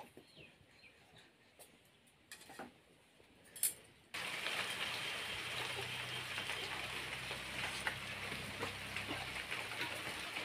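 Faint clicks and clinks of a meal on steel plates, then about four seconds in a steady hiss with a low hum starts suddenly and holds.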